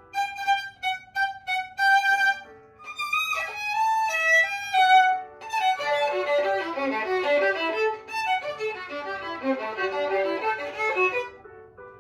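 Violin playing a practice passage: short separated notes with brief gaps, then from about halfway a faster run of lower notes that breaks off shortly before the end.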